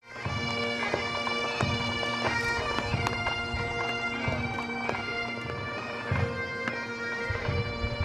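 A military pipe band playing bagpipes, with a steady drone held under a changing melody and low drum beats beneath.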